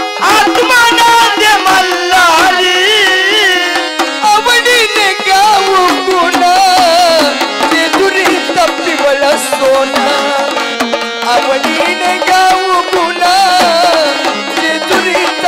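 Gondhal folk song: a man's voice singing through a microphone and PA over the sambal, the paired drum of Gondhal, beaten in a fast steady rhythm.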